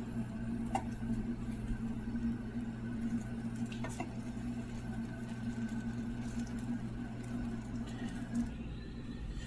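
Slices of bread being laid onto a hot ridged grill pan, with light taps about a second in and about four seconds in, over a steady low hum.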